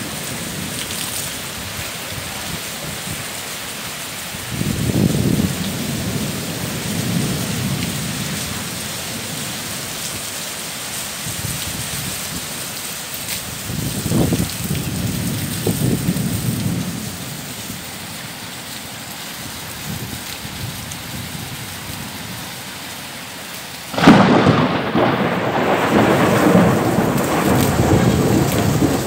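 Heavy rain pouring steadily. Thunder rumbles a couple of times, and near the end a sudden loud thunderclap breaks and keeps rolling.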